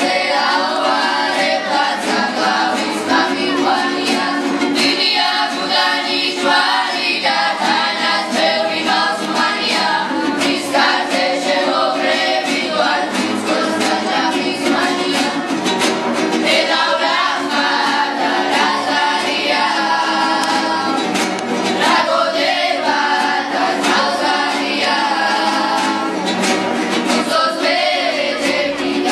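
A children's group singing a song together, accompanied by strummed acoustic guitars and a panduri, the Georgian three-stringed lute.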